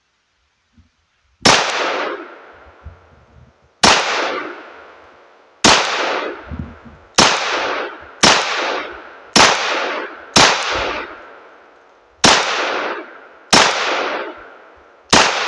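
Ten shots from a Glock 43X 9mm pistol firing 124-grain full metal jacket rounds. The shots come slow and deliberate, one to two and a half seconds apart, and each is followed by a ringing tail that dies away.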